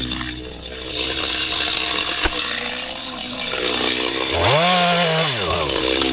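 Stihl MS 250 two-stroke chainsaw engine dropping from cutting speed to idle, idling, then revved once briefly about four and a half seconds in before settling back.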